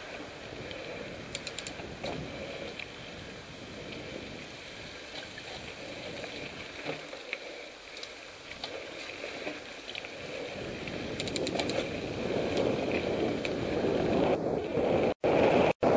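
Mountain bike rolling down a dirt and stone singletrack, heard from a helmet camera: tyre noise and rattling, with short runs of rapid ticking. Wind noise on the microphone builds over the last few seconds as speed picks up, and the sound cuts out twice briefly near the end.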